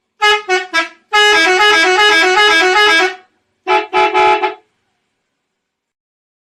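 Indonesian bus 'telolet' musical horn: three short hoots, then about two seconds of two tones warbling quickly back and forth, then two more short hoots.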